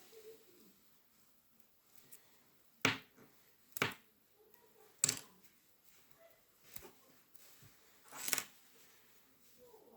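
A few sharp clicks and light knocks of small hard parts being handled, about five in all, irregularly spaced, the last one slightly longer.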